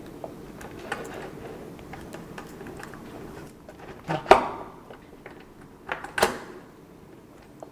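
Small clicks and knocks from the parts of a smart door lock being handled and fitted onto a door, with two louder knocks about four and six seconds in.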